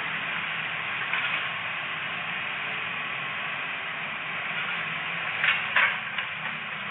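Excavator engine running steadily, with a few sharp clanks about five and a half seconds in.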